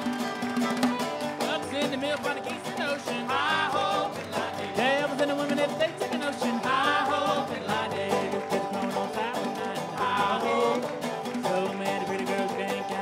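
Old-time string band playing a traditional fiddle tune: fiddle with sliding, wavering notes over plucked banjo, with a quick clicking beat running through it.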